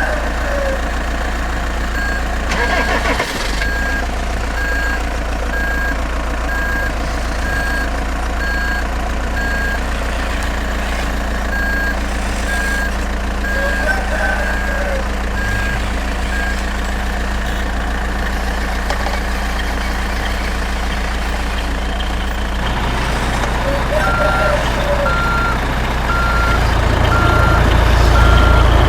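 Truck reversing alarm beeping at an even rate over a steadily running engine. The beeping stops for several seconds, then resumes at a slightly lower pitch, and the engine grows louder near the end.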